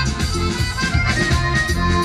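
Live amplified Bulgarian Shop-style folk dance music: accordion and clarinet playing the tune over keyboard and drum kit, with a steady beat.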